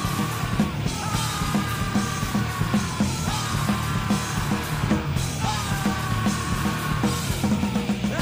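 Nu metal band recording: distorted guitars and driving drums with shouted vocals.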